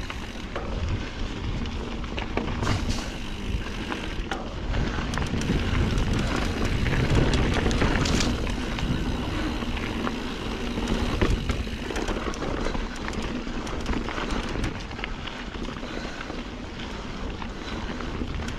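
Norco Sight A2 mountain bike ridden along a dirt trail: tyres rolling and crunching, and the bike rattling with frequent sharp knocks. Wind buffets the camera microphone, adding a low rumble.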